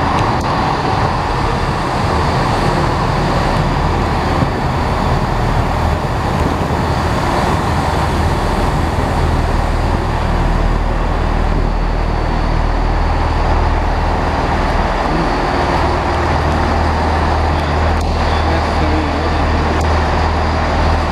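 Diesel engines of a GWR Class 166 Networker Turbo multiple unit running steadily at the platform, a continuous low drone that gets heavier a little past the middle.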